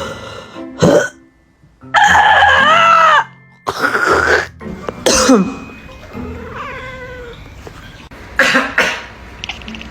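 A person coughing in short bursts several times, with a cat meowing between the coughs; the loudest meow is a long, arching one about two seconds in.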